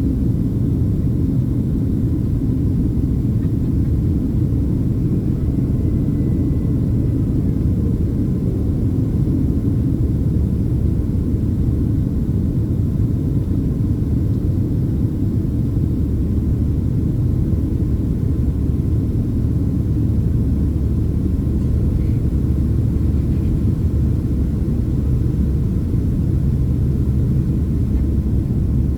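Steady low rumble of engine and airflow noise inside the cabin of a Boeing 767-300ER in flight.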